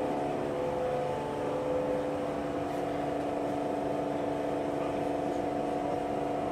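Steady hum of running machinery: several held tones over even background noise, unchanging in level.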